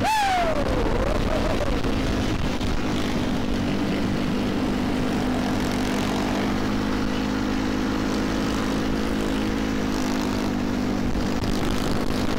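Motor vehicle engine droning steadily at cruising speed, with road and wind noise. A short falling tone sounds at the very start.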